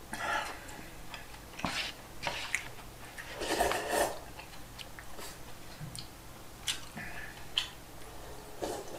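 Close-up eating sounds: slurping and sipping from a paper takeout bowl, with chewing and small clicks of chopsticks and a spoon against the bowl. A longer slurp comes about three and a half seconds in.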